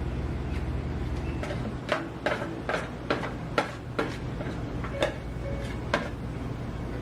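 Light clicks and taps of kitchenware, about eight at irregular spacing in the middle few seconds, over a steady low machine hum.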